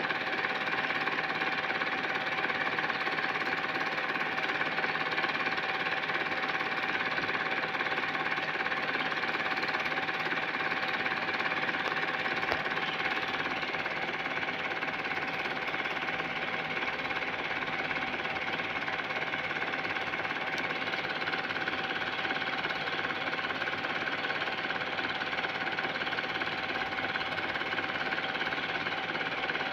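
Home-movie film projector running with a steady, even mechanical clatter and a faint hum.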